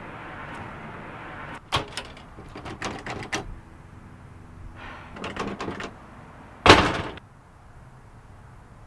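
A door being handled: clusters of sharp clicks and rattles, then one loud bang about two-thirds of the way through, like a door slamming shut.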